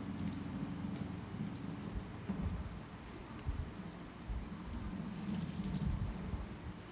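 Water spraying from a handheld shower head onto wet hair and splashing into a salon shampoo basin during a rinse. An uneven low rumble runs underneath.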